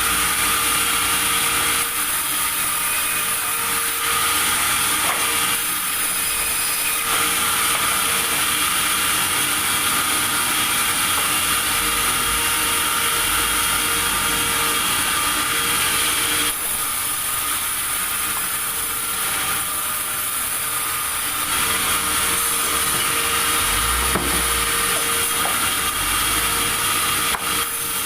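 Sawmill saw cutting through timber: a steady, loud, hissing whine with a constant motor hum underneath, whose pitch and texture shift several times as the cut goes on.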